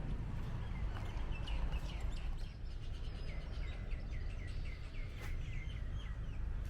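A songbird calling a quick run of repeated short chirps, about four a second, for a few seconds, over a steady low rumble.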